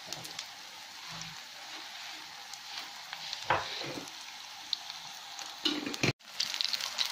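Breadcrumb-coated potato kebabs shallow-frying in oil on a tawa over low heat: a steady sizzle with fine crackling. The sound drops out for a moment about six seconds in.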